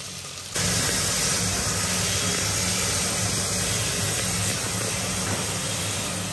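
Chopped onions frying in hot mustard oil in an aluminium pressure cooker as they are stirred: a loud, steady sizzle that starts abruptly about half a second in.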